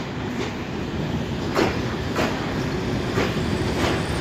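Locomotive-hauled passenger train rolling slowly along the platform, a low rumble that grows louder, with wheels clacking over the rail joints about once a second.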